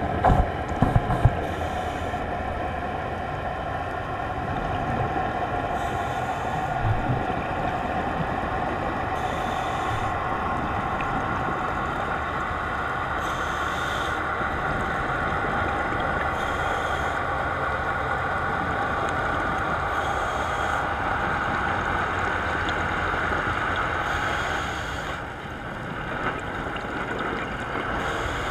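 Steady drone of a boat's engine and propeller carried through the water, heard underwater through the camera housing. A faint hiss returns every three to four seconds from scuba breathing, and a few thumps sound in the first second or so.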